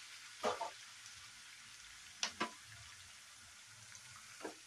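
Onions and spices frying in a little oil and water in a nonstick pan: a steady soft sizzle, with a slotted spatula stirring through it. There are two brief louder sounds, about half a second in and a little after two seconds.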